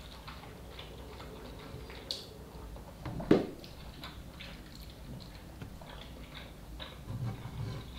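Soft chewing and mouth sounds of a person eating instant noodle soup, with small clicks throughout and one louder sharp noise about three seconds in.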